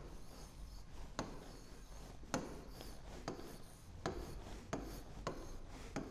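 Stylus writing on the glass of an interactive touchscreen board: faint scratching strokes, with a sharp tap as the pen meets the screen at each new digit, roughly once a second.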